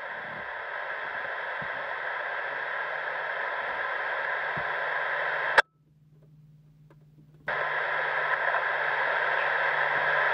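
Railroad radio scanner hissing with open static between transmissions. The static cuts off with a click about five and a half seconds in as the squelch closes, and comes back about two seconds later.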